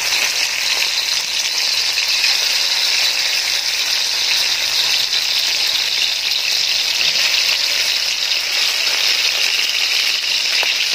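Chicken drumsticks frying in hot oil in an aluminium wok, a steady loud sizzle as pieces are added one by one.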